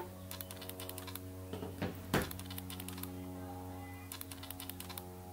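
Scattered light clicks and taps, with two louder knocks about two seconds in, over a steady electrical hum.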